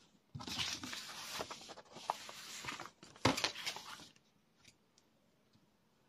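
Sheets of printed paper rustling and sliding as they are handled and lifted off a notebook, with a sharper crackle about three seconds in, stopping after about four seconds.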